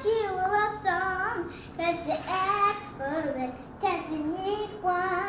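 A young girl singing solo, short phrases with sliding pitch.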